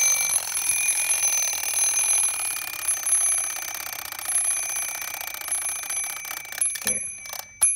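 Gabriel wind-up alarm clock's twin bells ringing: the hammer rattles rapidly between the two bells in a loud, continuous ring that cuts off suddenly about seven seconds in, followed by a couple of clicks.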